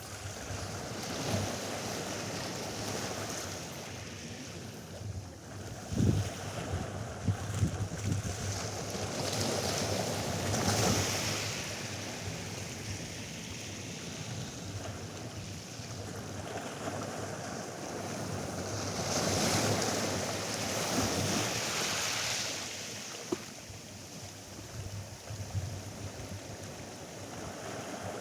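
Atlantic surf on a sandy beach: a steady wash of waves that swells twice as waves break and run in, about ten seconds apart. Wind buffets the microphone, with a few short knocks early on.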